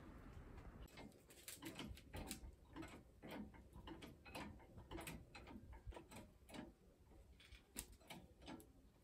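Faint, irregular clicking of hand tools working under a car's front end, two or three sharp clicks a second.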